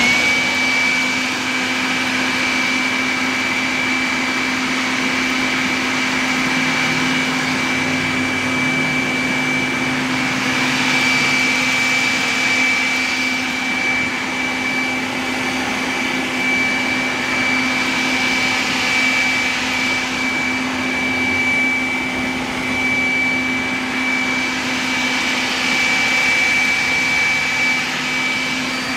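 Leaf blower switched on and running steadily, a high whine over a rushing blast of air, as it blows out popcorn fed in from a bucket above.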